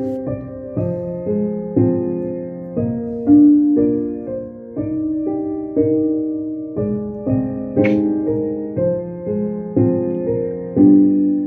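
Piano playing a passage of chords on its own, each chord struck and dying away, about two a second.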